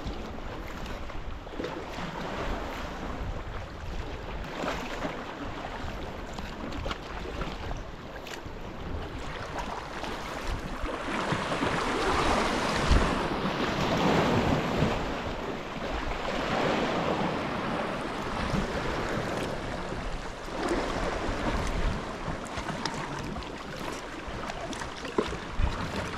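Sea water washing and splashing around a kayak and against rocks, swelling louder for a few seconds midway, with wind buffeting the microphone.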